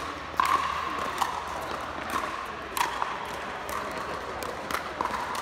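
Pickleball paddles striking the plastic ball: about six sharp pops at irregular intervals, a second or so apart.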